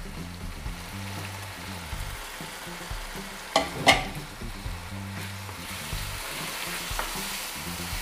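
Chicken with ground spices and green chillies sizzling in oil in a karahi while a plastic spoon stirs it. The spoon knocks against the pan twice, about three and a half seconds in, and the sizzle grows louder in the second half.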